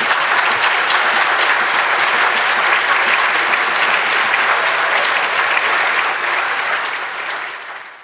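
Audience applauding steadily, fading away near the end.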